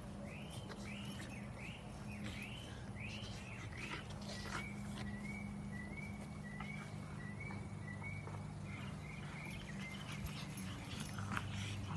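Two pugs playing and wrestling on grass, with dog sounds over a steady low hum. A string of high chirps repeats about two to three times a second, arched notes at first, then shorter, quicker ones until near the end.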